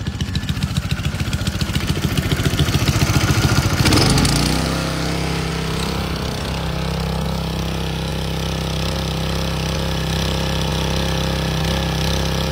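Small gasoline engine driving a transfer pump that moves waste motor oil, throttled up from idle: it runs with a pulsing beat that grows louder over the first four seconds, then settles into a steady high-speed run.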